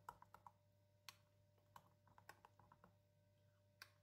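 Faint, irregular clicks of a spoon against a glass bowl while a liquid mixture is stirred, a dozen or so light taps, the clearest about a second in and near the end.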